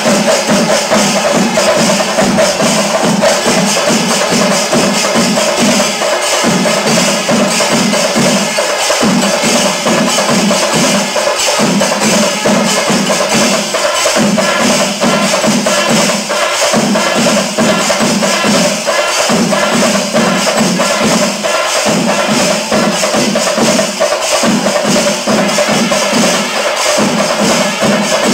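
Music with fast, dense percussion, over a low tone that pulses in repeated phrases of about two and a half seconds.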